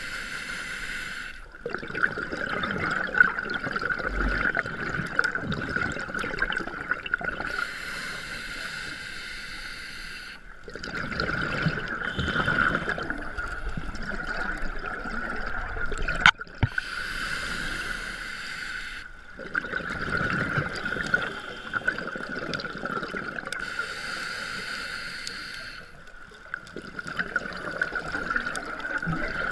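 Scuba diver's regulator breathing heard at the camera: a hissing inhale through the demand valve, then a longer bubbling exhale, about four slow breath cycles. A steady high tone runs underneath, with one sharp click a little past the middle.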